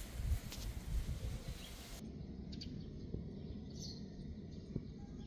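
Outdoor background noise with a low rumble, changing about two seconds in to a quieter ambience with a couple of faint, short bird chirps.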